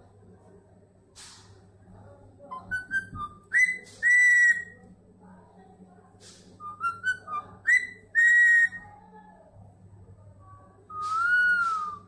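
Young parakeet whistling a repeated phrase, a run of short chirps ending in a long held whistle, twice, then one long whistle that rises and falls near the end.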